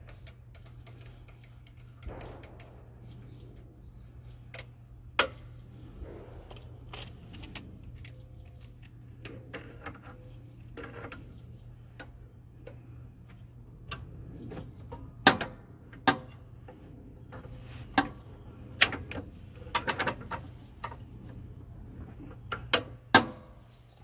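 Irregular metallic clicks and clinks of locking pliers gripping and twisting on a steel steering bell crank shaft, a few of them sharp and loud, as a bell crank corroded onto the shaft is worked at without coming free.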